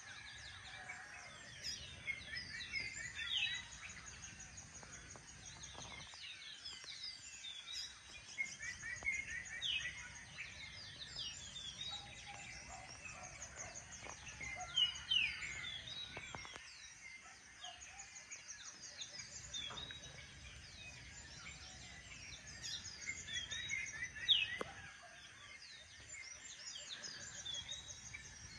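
Dawn chorus of many birds chirping and trilling without pause, with a few louder sharp calls about halfway through and near the end, over a faint low steady rumble.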